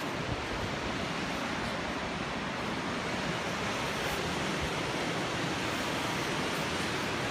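Steady rushing wind noise on an exposed high bridge, even and unbroken.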